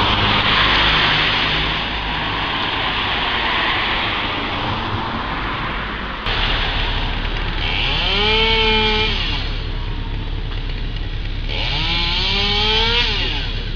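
Chainsaw running steadily for about six seconds, then an abrupt change to a low steady engine hum over which a chainsaw is revved twice, each rev rising in pitch, holding briefly and dropping back.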